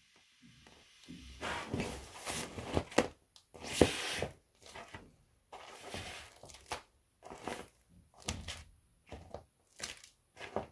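Pink inflatable vinyl dolphin toy being trodden flat under high-heeled sandals: its air rushes out in noisy bursts over the first few seconds, then the flattened vinyl crinkles and rustles in short bursts with light heel taps as it is stepped on.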